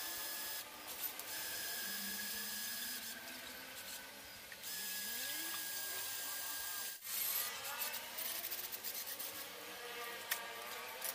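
Cordless drill boring a hole through the center of a brushless hub motor's stator, the pilot hole for an M6 thread. The drill runs steadily, stopping briefly a few times, and goes choppy in the last few seconds.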